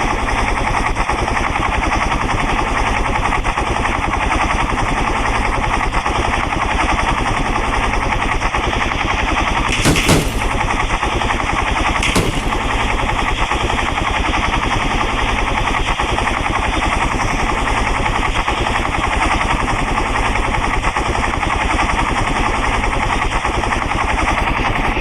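Helicopter rotor chopping steadily, a loud, fast, even beat of blade slap with engine noise underneath. Two short sharp cracks stand out, about ten and twelve seconds in.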